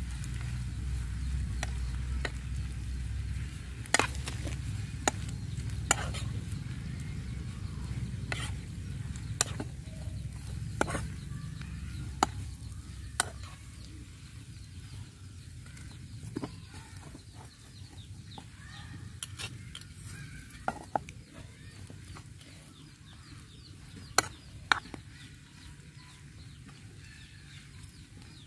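Metal spoon stirring eggs and onions in a frying pan, with sharp clinks and scrapes against the pan every second or two over faint sizzling. A low rumble underneath is loudest in the first half and fades.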